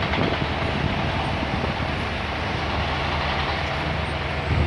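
Steady low engine drone over a wash of urban noise, from construction machinery at work on a building site mixed with road traffic.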